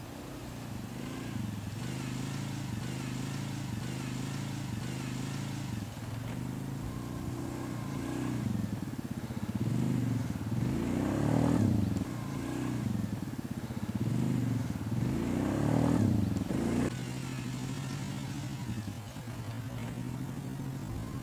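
ATV (quad bike) engine running under the rider's throttle, its pitch rising and falling as it is revved. It gets louder in two swells around the middle, then settles to a steadier run near the end.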